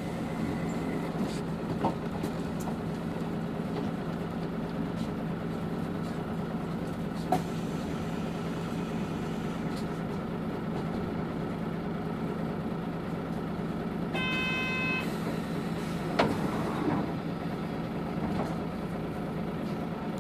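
Cabin sound of a Hino BJG-HU8JLFP (Blue Ribbon City Hybrid) city bus: a steady drivetrain hum with a few light clicks and knocks. A short electronic chime sounds once about 14 seconds in.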